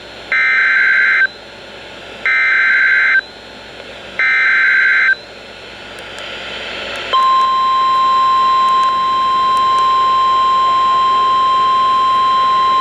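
NOAA Weather Radio emergency alert: three one-second bursts of the EAS SAME digital header, a harsh warbling data screech, about two seconds apart, then after a stretch of hissing static the steady single-pitch warning alarm tone begins about seven seconds in and holds.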